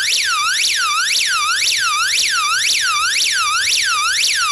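SOS alarm of a Toolchums emergency hand-crank weather radio sounding loudly: an electronic siren tone that sweeps down and back up about twice a second, over and over.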